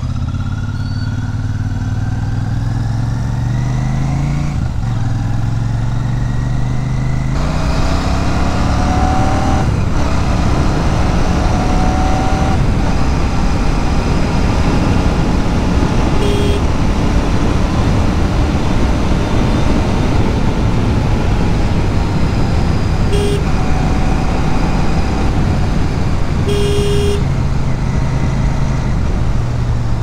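Royal Enfield Super Meteor 650's parallel-twin engine pulling hard, rising in pitch twice in the first several seconds with a gear change between, then cruising steadily as wind noise builds. A horn beeps briefly three times, the last a little longer.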